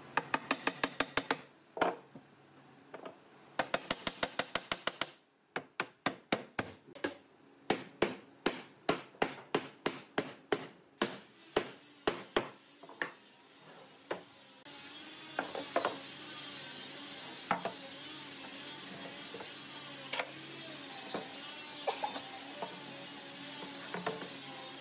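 Wooden mallet knocking a pine rail down onto its joints. The knocks come in fast runs, then slower single blows. Later there is a steady hiss with occasional light knocks.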